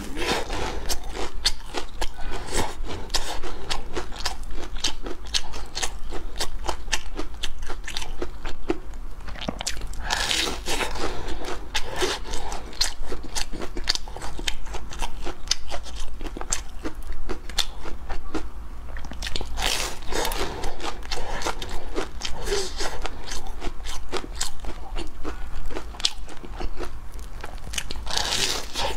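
Close-miked eating of crumb-coated deep-fried snacks: crisp crunching and chewing throughout, with a louder crunchy bite roughly every ten seconds.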